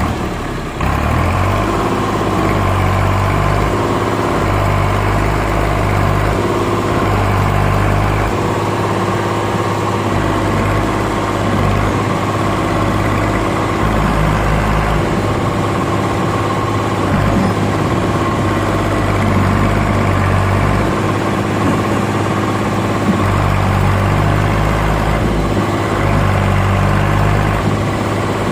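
Same tractor's diesel engine running hard under load as it tries to pull a brick-laden trailer through deep mud, its note rising and falling repeatedly.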